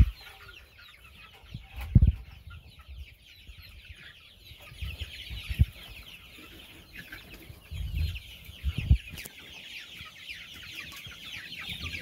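A flock of six-week-old chicks peeping and cheeping together in a continuous high chatter, with a few dull low thumps, the loudest about two seconds in.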